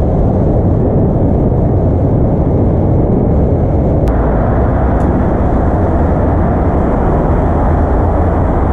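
Steady rumbling ride noise from a Suzuki scooter under way: wind rushing over the onboard camera's microphone together with the scooter's running engine, with a short click about four seconds in.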